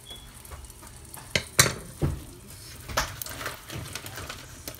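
Butter sizzling in a pan under a flour tortilla while cooked ground beef is spooned onto it. Several sharp clicks and scrapes of the utensil against the pan, the loudest about one and a half seconds in.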